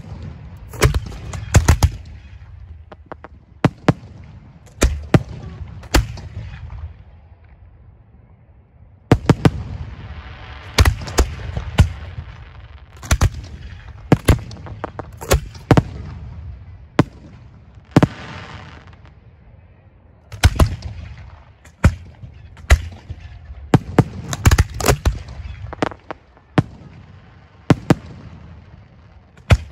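Racks of display-firework mortar tubes firing aerial shells: many sharp booms, some in quick runs of two or three, over a low rumble, with stretches of hissing crackle about ten and eighteen seconds in.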